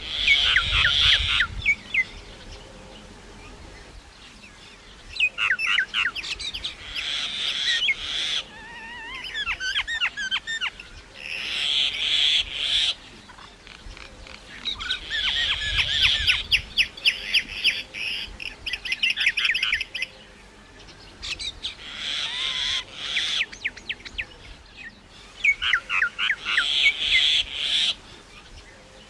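Myna calling: repeated bouts of rapid, high chattering and whistled notes, each a second to a few seconds long, with short pauses between.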